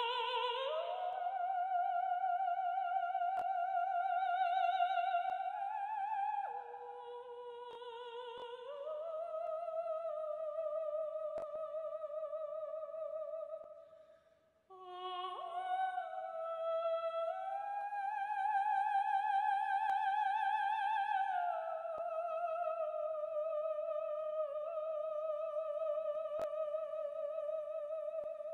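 Runway soundtrack of a lone high voice singing long, slow held notes with a wide vibrato, sliding from one pitch to the next, with no accompaniment. It breaks off briefly about halfway through, then carries on.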